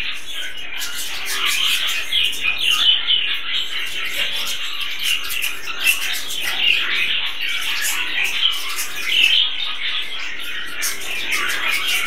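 A flock of budgerigars chirping and warbling all at once in a continuous chatter.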